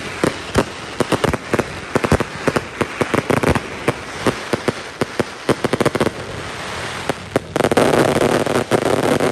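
Fireworks display: a rapid run of bangs and crackles that eases off about six seconds in, then a loud, dense crackling from about seven and a half seconds in.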